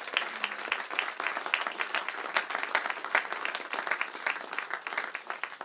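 Congregation applauding: many hands clapping at once, fading out near the end.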